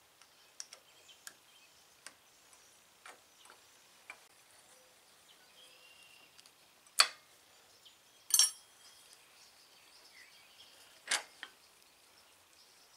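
Small metal clicks and clinks from a motorcycle brake caliper and its pad retaining pins being handled in a bench vise. A sharp metal clack comes about seven seconds in, a ringing metallic clatter just after, and another knock about eleven seconds in.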